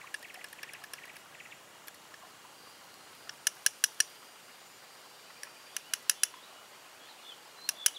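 Brass powder flask being handled and worked by hand: a quick run of faint ticks in the first second and a half, then sharp small metallic clicks in three short groups.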